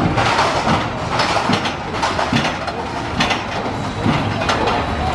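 Steel roller coaster train rolling slowly out of the station, a steady rumble broken by a series of irregular clacks and rattles as the cars run over the track.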